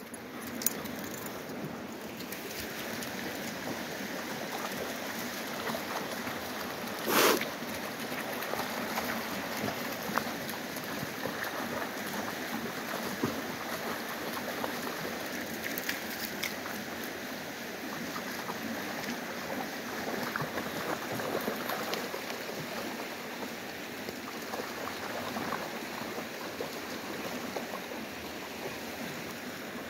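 Shallow creek water running steadily, with dogs wading and splashing through it. One short, loud sound about seven seconds in.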